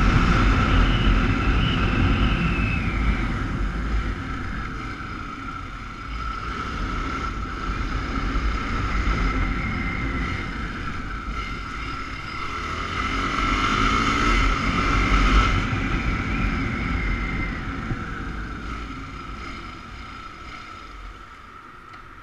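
Motorcycle engine running under way with wind rush on the microphone. It eases off over the first few seconds, picks up and pulls harder again past the middle, then dies down as the bike slows near the end.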